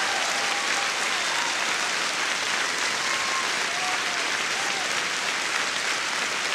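Concert audience applauding steadily at the end of a song, with a few faint voices calling out in the middle.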